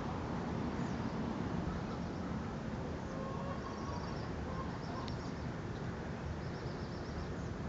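Steady low outdoor background rumble, with faint, high, rapid bird trills repeating every second or two from about three seconds in.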